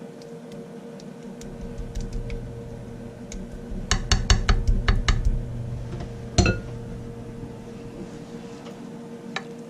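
Spoon clinking and scraping against a baking dish while sauce is spread over chicken, with a quick cluster of clinks about four seconds in and one louder knock a couple of seconds later.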